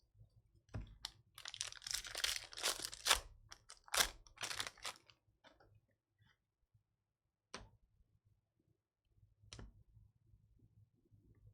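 A 2023 Panini Score football card pack's wrapper being torn open and crinkled: a dense run of crackling and tearing for about four seconds. It is followed by two single sharp clicks a couple of seconds apart.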